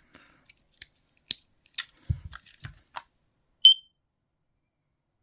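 Plastic clicks and knocks as a smoke alarm is handled, with a dull thump about two seconds in, then a single short, high-pitched beep from the alarm's piezo sounder about three and a half seconds in.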